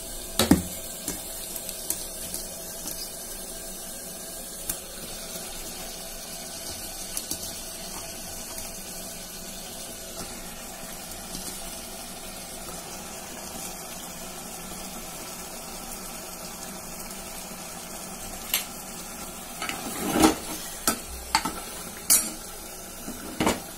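Chicken pieces sizzling in hot oil and masala in an open pressure cooker, a steady frying hiss. Sharp knocks and clinks of utensils against the pot come about half a second in and several times near the end.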